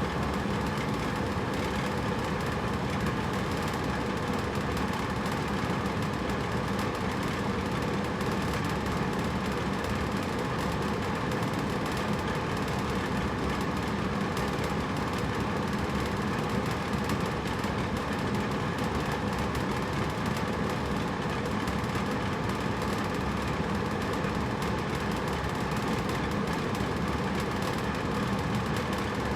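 Hotel room air conditioner running steadily: an even rush of blown air over a low mechanical hum from the unit, unchanging throughout.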